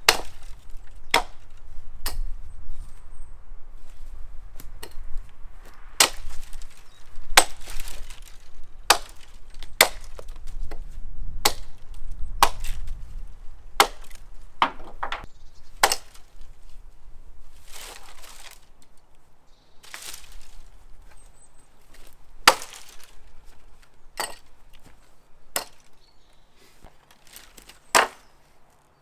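Axe chopping sapling and small-tree wood into firewood: a series of sharp chopping strikes, about one a second at first, spacing out after about 16 seconds.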